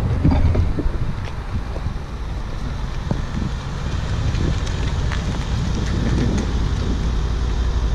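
Wind buffeting the microphone: a steady low rumble with hiss and no engine note.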